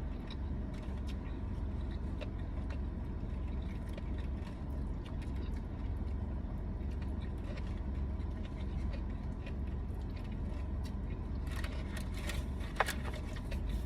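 Steady low rumble, with light clicks and a brief rustling patch near the end.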